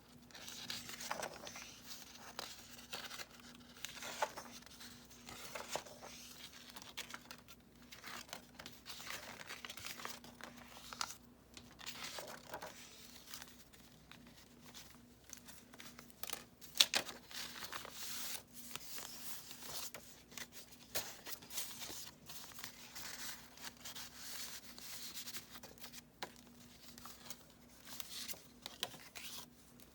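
Paper pages of a handmade junk journal being turned and handled, rustling and crinkling in irregular strokes, with one sharp click a little past the middle. A faint steady hum runs underneath.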